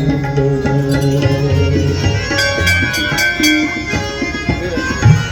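Hindu devotional bhajan music: held melodic notes over hand-drum beats, with brighter percussion strokes in the middle of the passage.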